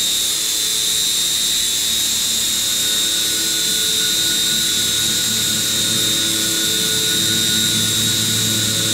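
CNC vertical machining center's spindle and 12 mm end mill roughing a pocket in hardened C45 steel (42 HRC): a steady, loud, high whine with several lower tones under it. A further tone joins about three seconds in and a low hum a couple of seconds later.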